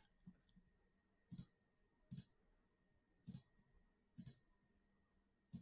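Computer mouse clicking over near silence: five quick clicks about a second apart, each a fast press-and-release pair.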